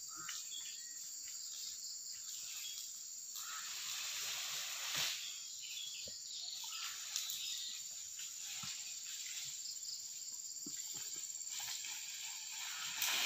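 Steady high-pitched insect chorus of crickets or cicadas, with a few soft brief rustles or knocks; the clearest comes near the end.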